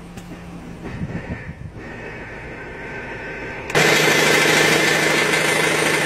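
Ford Escape 1.6-litre engine idling with a rapid metallic knock, faint at first as heard from inside the cabin, then much louder from close at the engine bay about four seconds in. The knock comes with the A/C on and is traced to a cracked flex plate.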